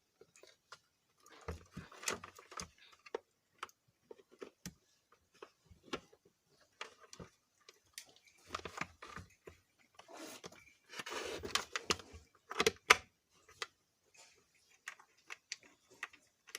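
Scattered clicks, taps and scrapes of a screwdriver and plastic mixer-grinder body parts being handled while a switch is screwed in place. Busiest from about a second and a half in and again from about ten to thirteen seconds, with one sharp knock near the end of that stretch.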